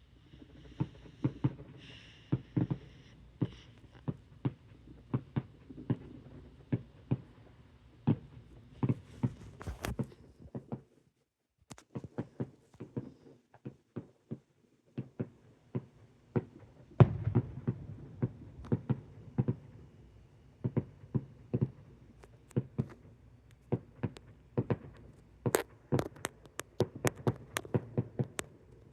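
Fireworks going off in quick succession: many sharp bangs and pops, several a second, over a low rumble. The sound cuts out completely for about a second, around eleven seconds in.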